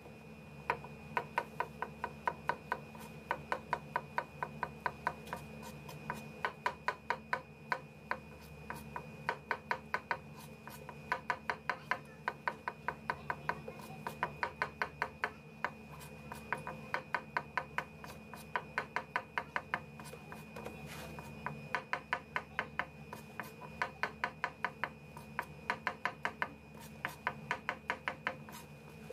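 Chef's knife slicing button mushrooms on a plastic cutting board: quick runs of knife taps against the board, several a second, broken by short pauses.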